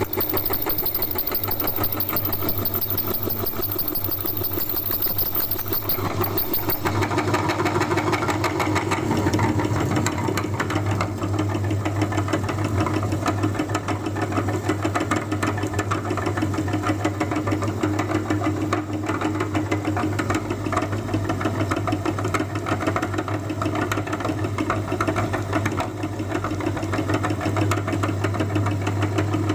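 Electric meat grinder's motor running steadily with a fast, even rhythm while grinding chalk; its sound changes about seven seconds in.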